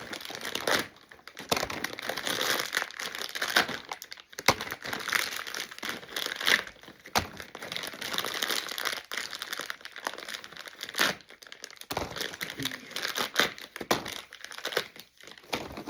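Plastic toy packaging being crinkled and torn by hand, a continuous crackling with several sharp clicks and snaps.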